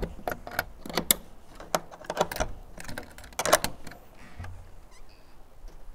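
Steel door latches and carabiners being unclipped and worked by hand: a series of irregular metallic clicks and clinks, with a cluster about three and a half seconds in.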